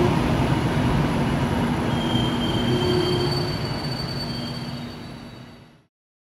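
Passenger coaches of a departing train rolling away over the rails, with thin high wheel squeals. The sound grows steadily quieter as the train recedes, then fades out sharply near the end.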